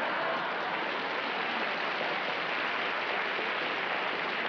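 Live studio audience applauding steadily in reaction to a punchline.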